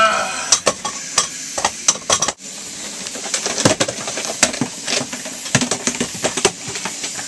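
Irregular clattering and knocking of objects being handled in an aircraft galley, over a steady cabin drone and hiss.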